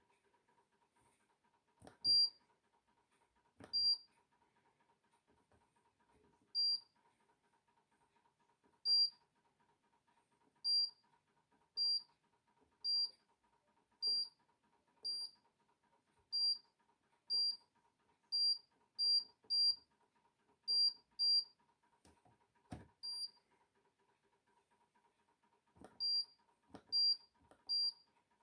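Hoover condenser tumble dryer's control panel beeping as its buttons are pressed: about twenty short high beeps at uneven intervals, a few with a soft click or knock, over a faint steady hum.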